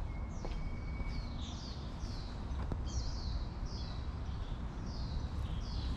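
A bird calling over and over, a series of short, high notes that each slide downward, more than one a second, over a steady low rumble.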